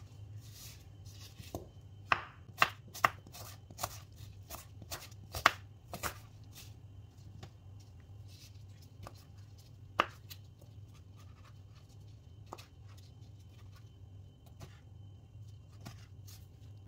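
Kitchen knife cutting apple and grapes on a plastic cutting board: irregular knocks of the blade against the board, quickest and loudest in the first six seconds, one sharp knock about ten seconds in, then softer, sparser cuts. A steady low hum runs underneath.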